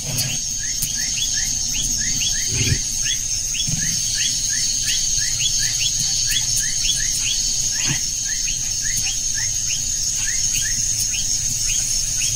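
Night-time wildlife chorus: a steady high-pitched insect drone with short rising chirps repeating about twice a second.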